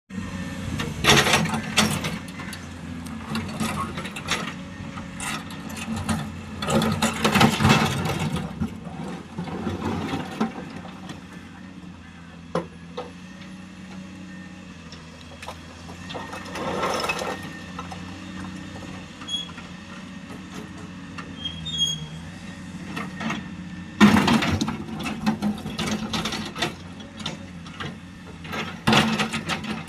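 A machine's engine running steadily, with bouts of metallic clattering and rattling over it that come and go several times.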